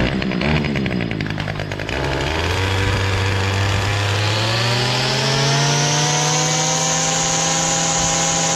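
Small four-stroke engine of a Toro edger (2 hp Suzuki) running. It is rough and uneven for the first couple of seconds, then speeds up smoothly over a few seconds and holds a steady, higher speed.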